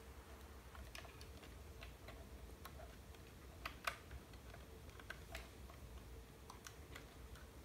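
Faint, irregular small plastic clicks and taps as wire connectors are fitted inside a hoverboard's open shell, over a faint steady hum.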